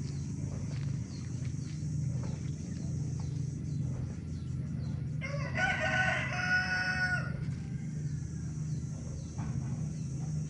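A rooster crowing once, a call of about two seconds in the middle, over a steady low rumble.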